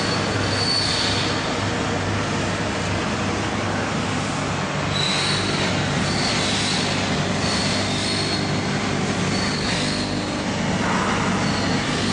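Industrial microwave puffing oven running: a steady machine hum and noise, with a high squealing whine that comes and goes every second or so.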